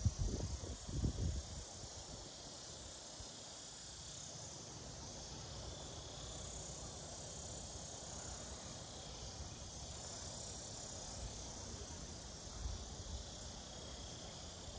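Steady chorus of insects, a continuous high-pitched trilling, with low rumbling bumps on the phone's microphone in the first second and a half and briefly again near the end.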